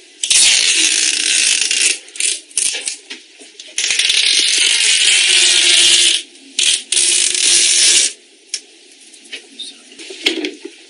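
Invisible (matte clear) adhesive tape being pulled off its roll in three long pulls, the first two lasting about two seconds each and the last about a second, with small handling clicks between them.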